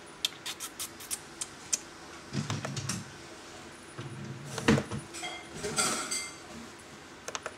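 Laptop keys and buttons clicking: a quick run of about seven sharp clicks, then scattered duller knocks and a louder knock midway, and a couple more clicks near the end.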